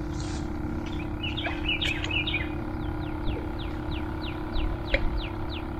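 A songbird calling: first a cluster of chirps, then a quick run of short falling notes, roughly four a second, over a steady low hum.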